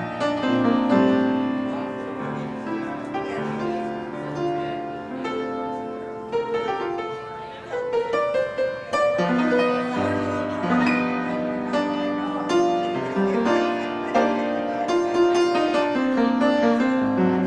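Solo upright piano playing a melody over chords, the notes sustained and ringing.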